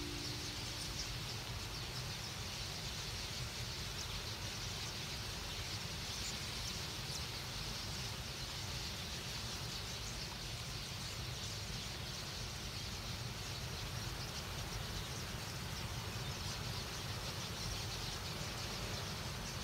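A large flock of small birds making a steady, dense wash of chirping, with a low rumble underneath.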